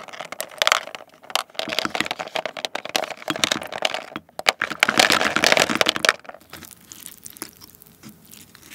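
Maltesers chocolate malt balls rattling and clattering against the inside of a plastic tub as they are scooped out with a spoon and tipped into a glass bowl of cream. The rattling is densest about five seconds in, then gives way to softer stirring in the bowl.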